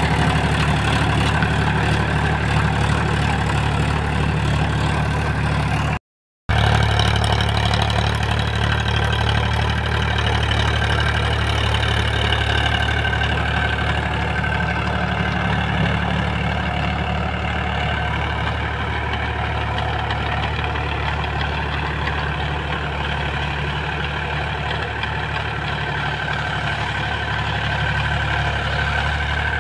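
Powertrac Euro 50 tractor's diesel engine running steadily under load as it drives a rotavator tilling the soil. The sound cuts out completely for a moment about six seconds in.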